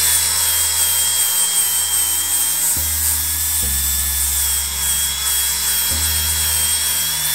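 DeWalt angle grinder with a flap disc grinding a weld bead flush on a steel frame tube: the motor holds a steady high whine over the rasp of the disc on the metal. The weld's high spots are being blended into the tube.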